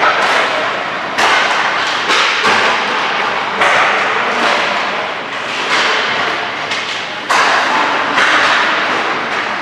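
Hockey pucks striking the boards of an ice rink: sharp knocks about every second or two, each ringing on in the arena's echo.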